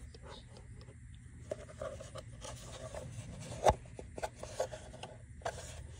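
Automatic transmission filter handled by hand: fingers rubbing and scraping on the filter and its outlet seal, with scattered small clicks and one sharper knock about three and a half seconds in.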